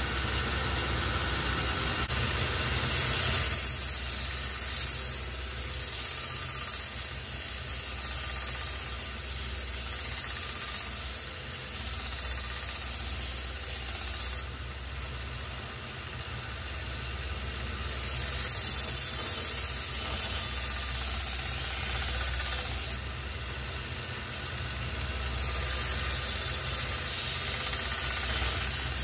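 Belt grinder running with a steady motor hum while the bit of a double-bit axe is pressed to the belt to sharpen it: a harsh grinding hiss in three long passes, with two short breaks where the steel is lifted off the belt.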